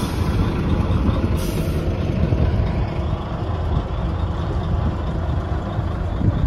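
Heavy truck's diesel engine running, a steady low rumble.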